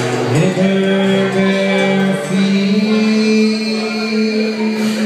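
Live acoustic music: strummed acoustic guitars under a voice holding long wordless notes. The voice slides up into its first note about half a second in.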